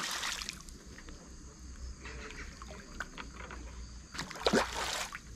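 Two short splashes of water, one at the very start and one about four seconds in, each lasting under a second.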